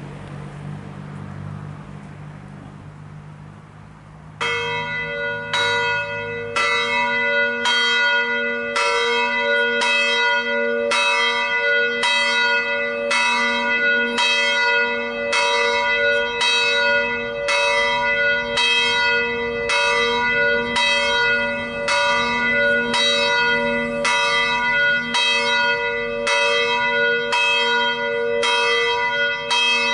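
A single bronze church bell, swung by an electric drive, tolling steadily about once a second, each stroke ringing on into the next. It begins about four seconds in, as a low vehicle hum fades out.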